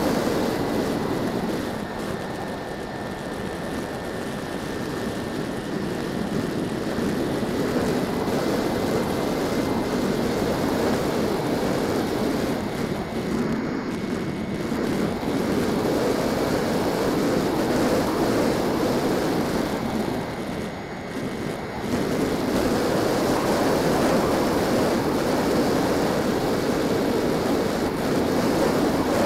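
Radio-controlled model airplane in flight, heard from its own onboard camera: a steady rush of wind and airflow with a thin, steady motor-and-propeller whine that steps up slightly in pitch about ten seconds in. The rush dips briefly about twenty seconds in.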